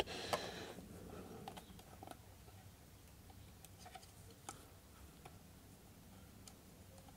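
Faint, scattered light clicks and ticks of hard plastic as the opened Kenwood food chopper's plastic gearbox is handled: gears and housing moved by hand and touched with a screwdriver.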